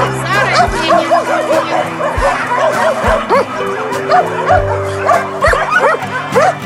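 Dogs barking and yipping in quick, high-pitched yelps, two or three a second, over background music.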